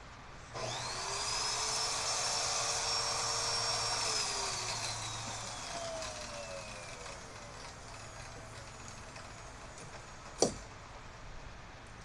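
Corded electric drill spinning up, running steadily at full speed for about three seconds, then switched off and winding down slowly with a falling whine. A single sharp knock about ten seconds in.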